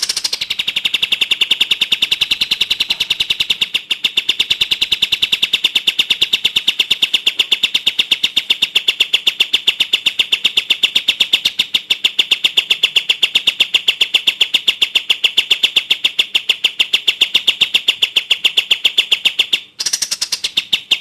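A bird repeating one high, sharp note in a rapid, evenly spaced, unbroken run, with a short break near the end.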